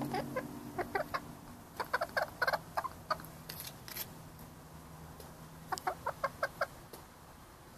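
Hen clucking in short runs of quick, clipped clucks: a few at the start, a busier cluster about two to three seconds in, and another run near six seconds. A ringing note dies away during the first second.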